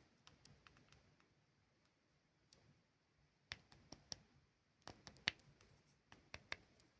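Faint, sharp clicks and taps from handling lollipops and their plastic packaging, coming in three small bursts of a few clicks each.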